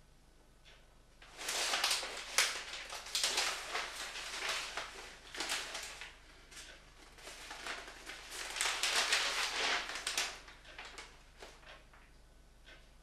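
Newspaper pages rustling and crinkling as they are turned and folded, in two long spells, the first starting about a second in, with small crackles between.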